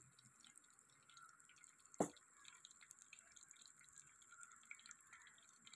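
Mustard seeds faintly sizzling and popping in hot coconut oil in an earthenware pot: scattered small ticks, with one sharper click about two seconds in.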